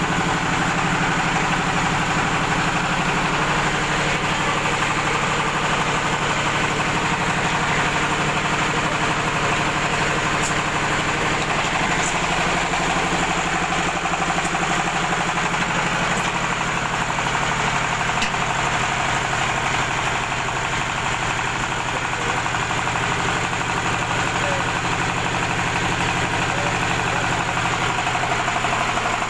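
Small stationary engine running steadily, driving a pan-type sand and cement mixer with its paddles turning the mix.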